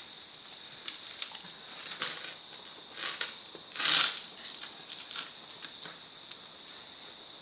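Hands working a rubber inner tube out of a motorcycle tyre: scattered rustles, rubs and light clicks, with one louder scrape about four seconds in.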